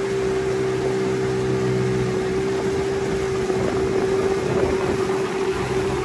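A boat's outboard motor running at a steady speed, a constant drone.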